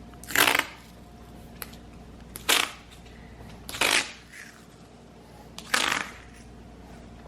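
Four short rustling scrapes, about two seconds apart, from handling a tube of epoxy while getting it ready to fill a crack.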